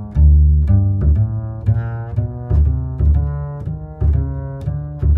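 Background music: a steady rhythm of low pitched notes, each starting sharply and then fading.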